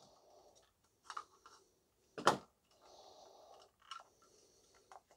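Clicks and knocks from handling the Dyson V7's rubber-mounted motor assembly as it is worked loose from its housing, with faint scraping and rustling between them; the loudest click comes a little past two seconds in.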